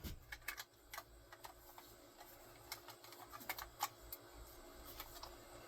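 Irregular light clicks and small taps of a staple gun being handled after it has run out of staples.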